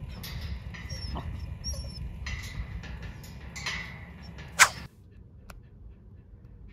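Samoyed whining in short, high squeaks over a steady low outdoor rumble, with one sharp, loud click about two-thirds of the way through; then the sound drops to a quieter stretch with faint regular ticking.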